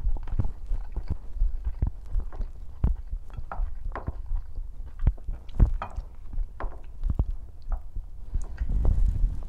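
Close-up belly sounds while eating: irregular soft thumps and clicks over a low rumble, with a few brief gurgles.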